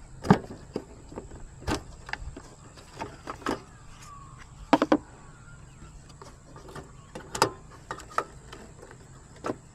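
Hands working at the back of a car headlight, handling the rubber housing and the clamp over the bulb: scattered clicks and knocks, with a quick triple click about five seconds in.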